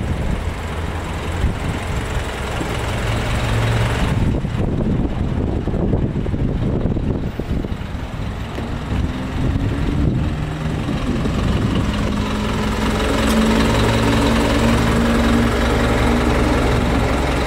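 Isuzu 4HK1TC 5.2-litre four-cylinder turbo-diesel engine idling steadily with a low diesel rumble, growing a little louder about two-thirds of the way in.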